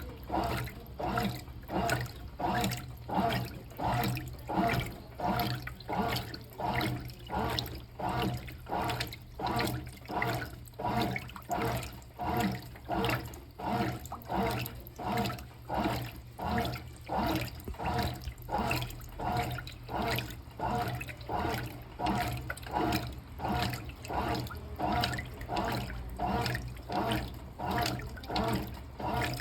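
Brastemp Clean washing machine on a delicate wash: water and a linen curtain sloshing in the tub in a regular rhythm, about one to two swishes a second, as the machine agitates the load.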